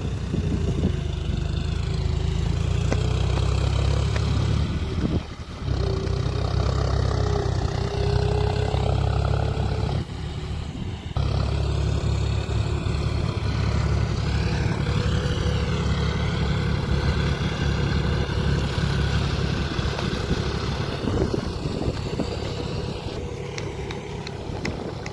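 An engine running steadily with a heavy low rumble and a wavering hum, dipping briefly about five seconds in and again about ten seconds in.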